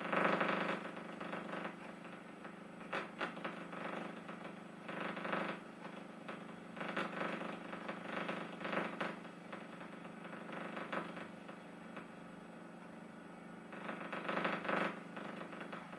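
Irregular bursts of rattling, mechanical-sounding noise over a steady low hum.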